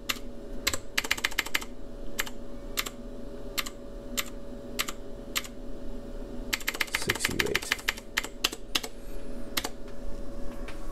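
Push-buttons on the keypad of an Amplitrex AT1000 tube tester clicking as they are pressed to set up a tube test. Single presses come about every half second, with quick runs of rapid clicks about a second in and again about seven seconds in, over a steady hum.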